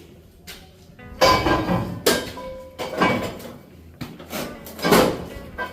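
Five irregular loud knocks and bangs from construction work, each short with a brief ringing tail, the loudest about a second in and near five seconds in.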